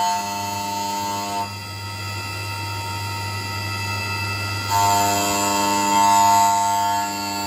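Syil X7 CNC mill spindle turning at 6000 rpm while its milling cutter skims the tops of aluminium standoffs, the table jogged slowly across at a reduced feed. A high singing tone sounds while the cutter is in a standoff, for about the first second and a half and again from about five seconds in. Between cuts only the spindle's steady hum remains.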